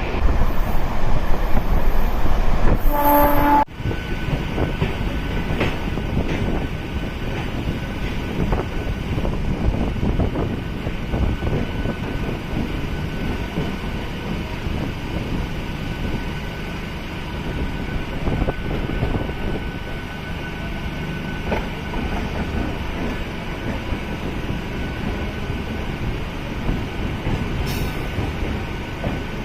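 MEMU electric passenger train running, a steady rumble with wheel clatter on the rails. A short horn blast sounds about three seconds in, just before the sound breaks off abruptly and the running noise resumes.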